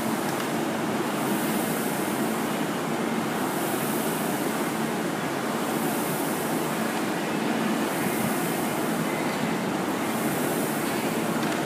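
Air rowing machine's fan flywheel whooshing steadily, swelling and easing with each stroke about once every second and a half.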